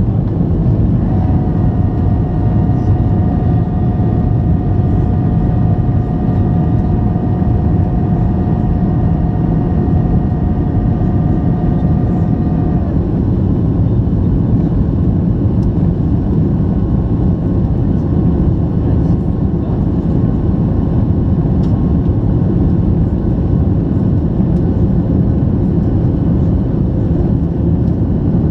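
Boeing 737-800 CFM56 jet engines running, heard as a loud, steady rumble from the passenger cabin. A steady whine sits on top for roughly the first half and then cuts off suddenly.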